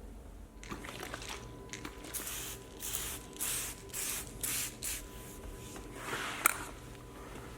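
Several quick squirts from a trigger spray bottle, each a short hiss, followed a couple of seconds later by a softer spray and a single sharp click.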